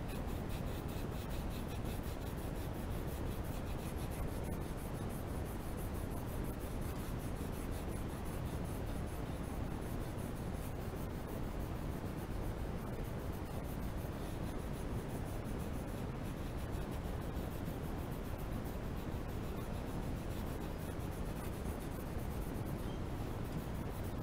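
Colored pencil scratching on paper in continuous back-and-forth shading strokes.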